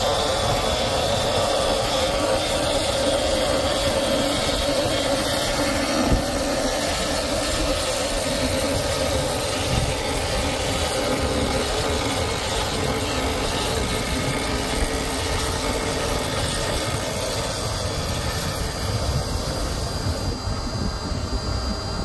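Electric davit winches running steadily, lowering an inflatable tender from the yacht's stern. The hum is strongest in the first half.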